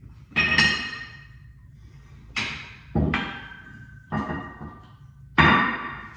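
Metal weights clanking together during a weightlifting set: a series of sharp clanks with a metallic ring, about one a second, two of them close together near the start.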